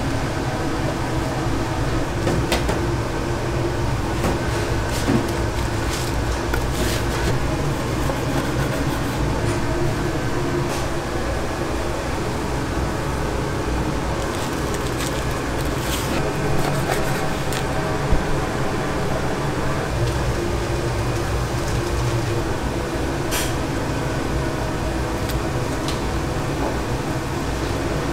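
Steady low mechanical hum, with scattered light clicks and knocks over it.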